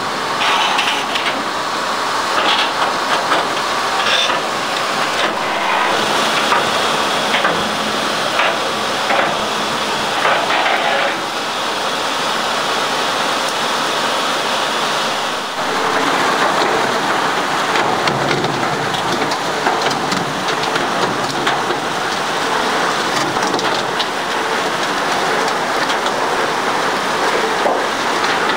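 Bucket chain gold dredge running: a steady rush of water and gravel pouring through its washing plant and sluice, with mechanical clatter in the first half. The sound changes abruptly about halfway through.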